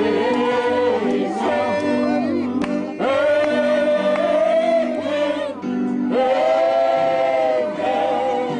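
A group of people singing together in long held notes, accompanied by an electronic keyboard playing steady chords.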